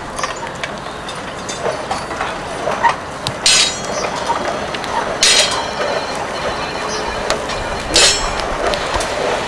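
Outdoor camp-cooking sounds: a steady hiss with small crackles, broken by three sharp metallic clanks a couple of seconds apart, like iron cookware or utensils being knocked together.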